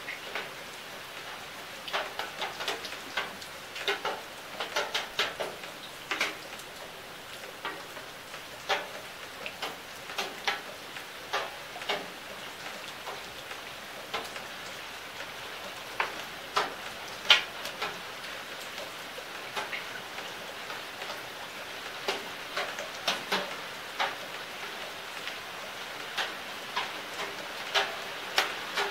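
Steady rain falling on leaves: an even hiss with frequent irregular louder drops tapping close by, some sharper than others.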